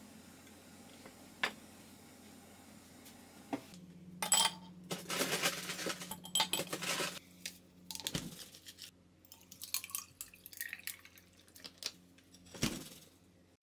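Dishes and cutlery clinking and knocking, with a few seconds of running or splashing water about four seconds in, over a steady low hum.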